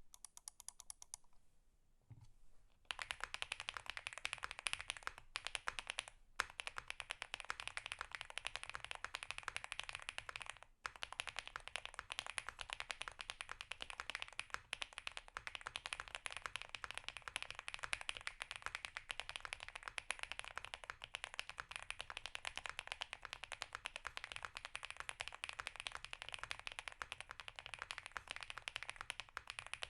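Typing on a custom mechanical keyboard with lubed Gateron Cream Soda long-pole switches on an FR4 plate, fully foamed, with PBT keycaps. A few light key clicks come first, then from about three seconds in a fast, continuous run of keystrokes, with brief pauses twice.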